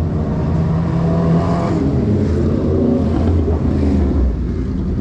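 A car engine accelerating close by, its pitch rising about a second in and again near the middle, over a steady low traffic rumble.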